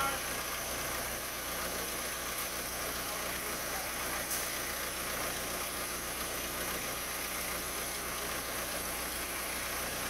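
Case 580E backhoe loader's diesel engine running steadily, an even mechanical hum, with a faint click about four seconds in.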